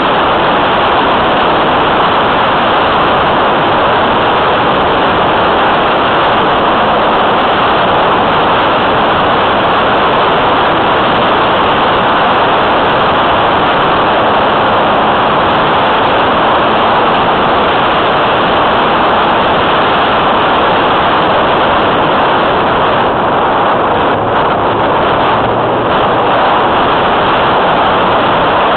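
Loud, steady rushing of airflow over the onboard camera's microphone on a radio-controlled model plane in flight.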